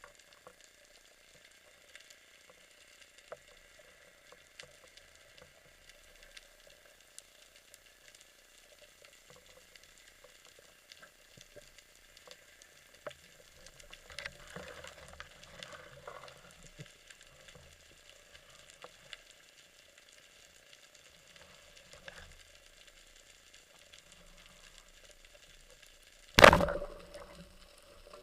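Underwater crackling of snapping shrimp, a faint steady field of fine clicks. Near the end there is one sudden loud bang with a short fading tail.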